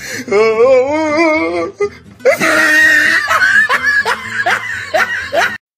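People laughing over background music, preceded by a wavering, warbling voice for about a second and a half. The sound cuts off abruptly near the end.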